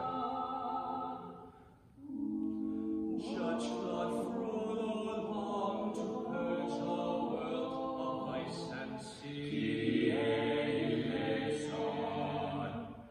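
A male barbershop quartet singing a cappella in close four-part harmony, holding sustained chords, with a short break about two seconds in.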